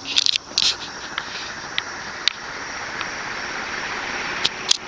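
SMC Laguna KA36 36-inch industrial ceiling fan speeding up to full speed: a steady rush of air from its blades that grows louder over the seconds. A few sharp clicks break in, twice near the start and twice near the end.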